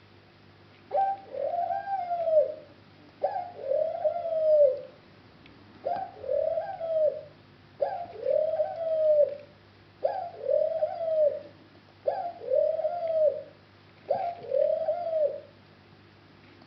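A dove cooing: seven repeated coos, each a short note followed by a long arched one, about every two seconds. Faint chirps of small birds sound behind it.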